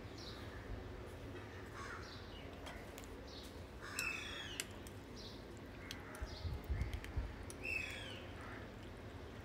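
Birds calling faintly, with two clearer calls about four seconds in and near the end. A few soft low bumps come a little before the second of these.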